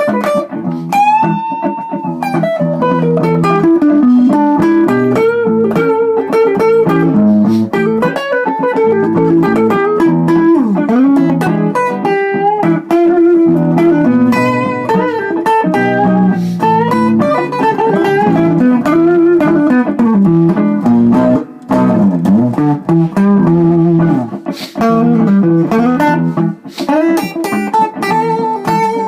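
Guitar playing a blues, with many notes bent and slid up and down in pitch.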